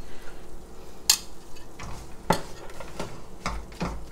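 Silicone spatula stirring and scraping flour roasting in ghee around a non-stick wok, with a few scattered knocks against the pan.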